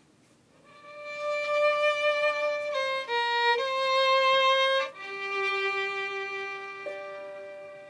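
Solo fiddle playing a slow melody in long, held bowed notes that step up and down in pitch, starting about half a second in.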